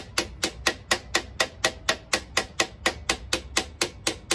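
Hand ratchet wrench clicking steadily, about four sharp clicks a second, as it is worked on a bolt at the bottom of the scooter's front fork leg.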